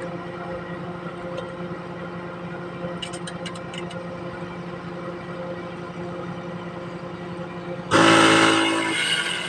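A steady mechanical hum throughout; about eight seconds in, a loud horn-like blast sounds for about a second and then fades.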